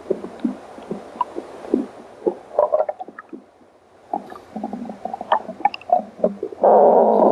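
A hungry stomach growling: a string of irregular short gurgles and squelching pops, then a loud, drawn-out growl near the end.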